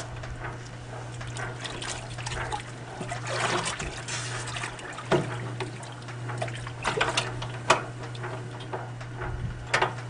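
Wash water trickling and gurgling as it is siphoned out of a 70-year-old Kenmore wringer washing machine's tub through a long garden hose, drawing with strong suction. The machine's electric motor hums steadily underneath, and there are a few sharp clicks.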